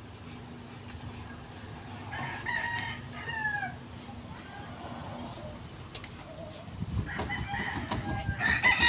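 Chickens calling: a rooster crowing and hens clucking, a few short calls a couple of seconds in and a louder burst of calls near the end.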